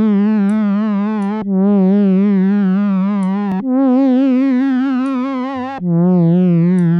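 FM8 synthesizer pad playing sustained notes with a wobbling vibrato, the pitch wavering up and down. Its pitch modulation comes from several FM operators running at different rates. A new note starts about every two seconds, and the third note, about halfway through, is pitched higher than the rest.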